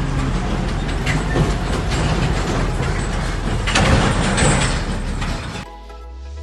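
Steady mechanical noise with a low hum, louder for a moment about four seconds in, giving way to background music near the end.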